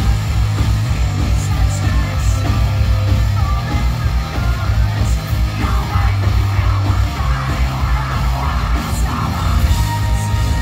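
A post-hardcore band playing live at full volume: distorted electric guitars, heavy bass and pounding drums, with screamed vocals over the top.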